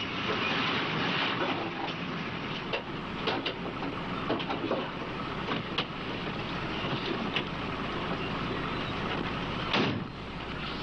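A car engine running steadily, then a car door shutting with a sharp knock just before the end.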